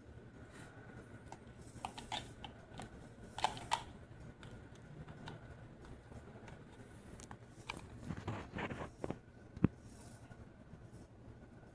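Encon Elite ceiling fan running with a faint steady hum. Scattered clicks and crackles come in two clusters, around two to four seconds in and again from about eight seconds, ending in one sharp click.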